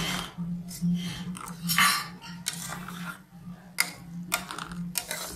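Metal slotted spoon scraping and knocking against an aluminium saucepan as minced chicken is stirred, in repeated short strokes over a steady low hum.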